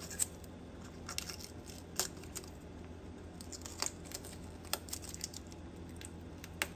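Protective sticker being peeled off the turn-signal bulb socket of a plastic headlight assembly: scattered small ticks and crinkles at irregular moments over a faint steady hum.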